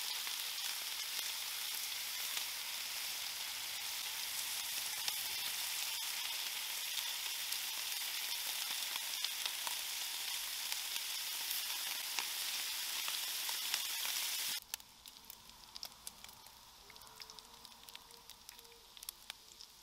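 Bacon sizzling on a hot flat-top griddle: a steady frying hiss with scattered pops and crackles. About fifteen seconds in it drops suddenly to a much quieter sizzle with sparser pops.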